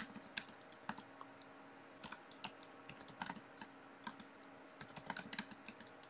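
Faint keystrokes on a computer keyboard: scattered single taps and short runs of a few keys as shell commands are typed.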